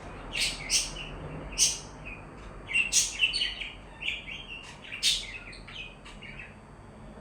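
Pet budgerigars chirping: short, sharp, high chirps in irregular bursts, busiest about three seconds in and sparser near the end.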